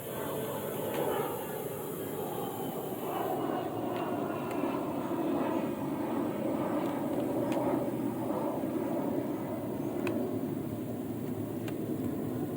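A steady low drone, like an engine heard at a distance, with a few faint clicks.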